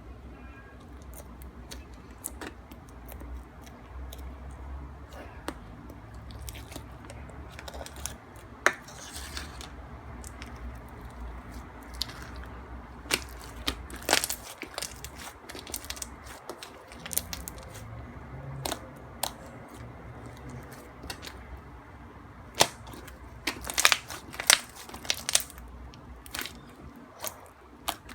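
Pearl slime, slime mixed with plastic pearl beads, being pressed and poked by hand, giving scattered crackling clicks and pops. A steady low hum underlies the first half.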